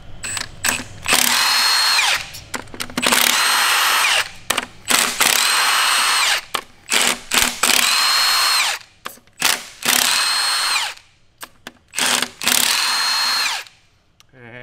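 Cordless impact wrench hammering out the E-Torx bolts that hold an engine's oil pan. It runs in about six bursts of a second or so each, the motor's whine dropping away at the end of each burst, with short clicks and taps between.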